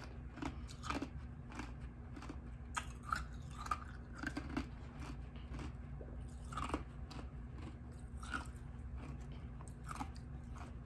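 Close-up eating sounds: popsicle ice and blackberries being bitten and chewed, with irregular small crunches and mouth clicks every second or so over a faint steady low hum.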